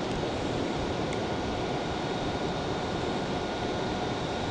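Steady rushing of flowing river water, even in level, with a faint steady high whine above it.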